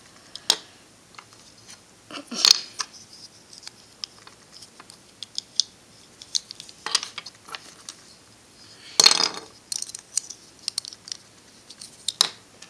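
Plastic pieces of a Rubik's 2x2x4 tower cube clicking and clacking as they are handled and hooked together, with a steady scatter of small ticks and about five louder clacks.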